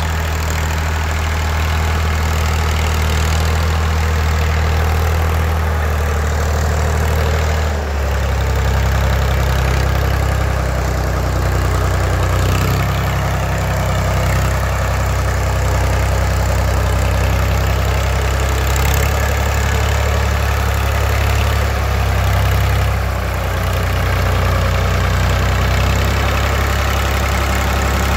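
Blue Ford farm tractor's engine running steadily as the tractor drives across the yard, its note shifting and filling out about eight seconds in.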